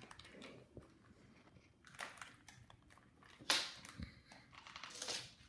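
A plastic cat-treat packet being handled: a few brief crinkles, with one louder crinkle about three and a half seconds in and a soft knock just after.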